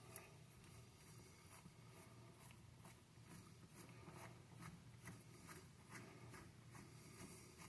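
Faint small clicks and rubbing as a washer and nut are worked by hand onto a toilet's closet bolt, over low room hum.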